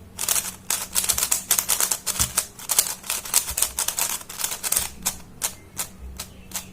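YJ Yuhu V2M magnetic megaminx being turned quickly by hand: a rapid clatter of plastic face turns that settles, about five seconds in, into evenly spaced single turns, roughly two or three a second.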